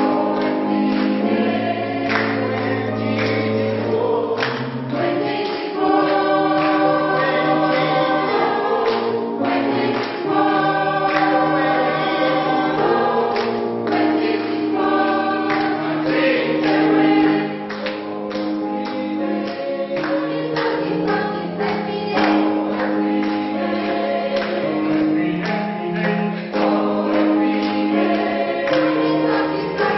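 Choir singing a gospel song in parts, with held chords over a moving low bass line.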